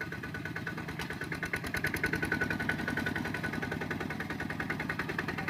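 Kubota RT120 walking tractor's single-cylinder diesel engine running with a steady, rapid putt, working under load as its cage wheels churn through mud. It gets a little louder about two seconds in.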